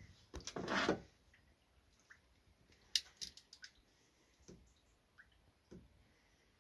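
Hand-held wire stripper working on electrical wire: a short rustling squeeze about half a second in, the loudest sound, then a sharp snap around three seconds in followed by a few lighter clicks and small ticks.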